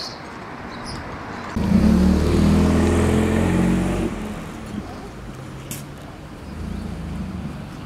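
A motor vehicle's engine running close by, loud with a steady low hum for about two and a half seconds from under two seconds in, then dropping to a fainter rumble.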